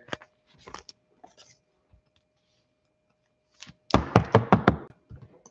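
A few faint clicks, then about four seconds in a quick run of sharp clicks and taps lasting about a second: trading cards and packs being handled on a tabletop. A faint steady hum sits underneath.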